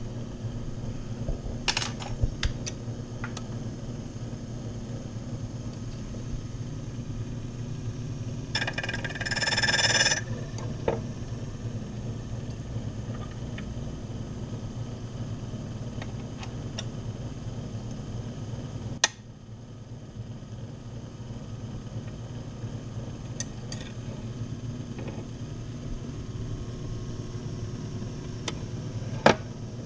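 Repaired electric motor of an older key-duplicating machine running steadily, with scattered clicks. About nine seconds in comes a louder grinding burst lasting a second or so, and near the middle and the end there are sharp clicks.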